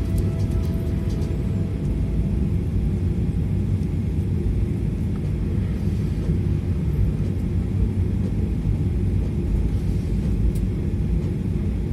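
Airliner cabin noise while taxiing: a steady low rumble from the engines and the rolling aircraft.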